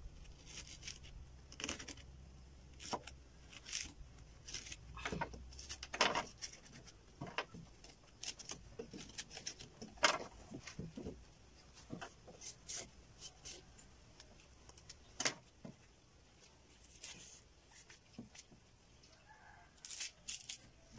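A small knife cutting and notching a fresh green banana-leaf midrib on a wooden table: a string of irregular short, crisp cuts and snaps, with the stalk knocked against the boards now and then.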